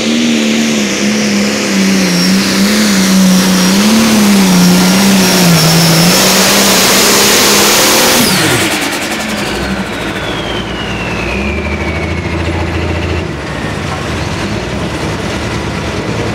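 Turbocharged diesel pulling tractor at full throttle under load, its engine note wavering up and down. About eight seconds in the throttle is chopped: the revs fall sharply, the turbo whistle winds down, and the engine settles to a low idle.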